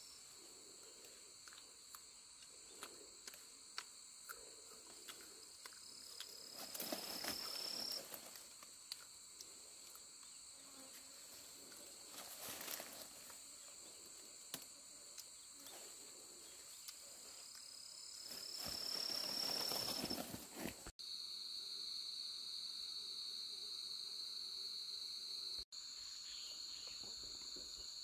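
Insects buzzing steadily in a high pitch. Twice a call swells and rises in pitch before stopping, with a few light clicks and short bursts of rustling along the way.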